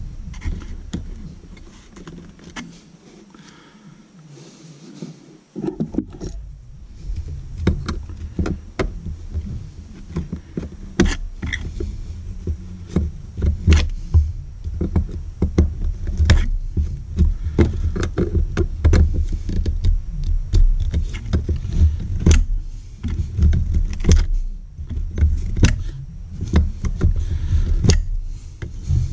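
Pliers working a ground wire inside a metal electrical box: irregular clicks, taps and scrapes of tool and wire against the box, over low rumbling handling noise. The sounds are sparse at first and get busier from about six seconds in.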